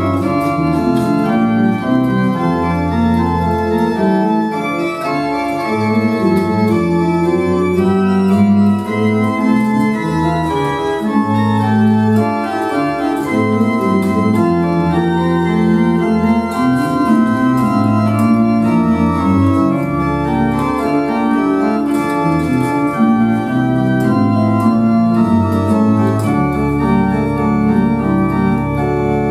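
Church pipe organ playing full many-voiced music, with manuals and pedal bass. Near the end it settles into one long held chord.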